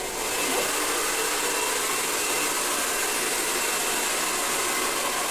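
Hand-held hair dryer running steadily on wet hair: a constant rush of air with a faint high whine.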